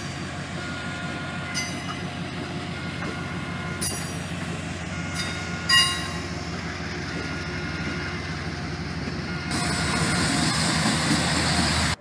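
Train in a rail yard: a steady low rumble with short high-pitched squeals and a few metallic clanks, the loudest about halfway through. The noise grows louder for the last couple of seconds.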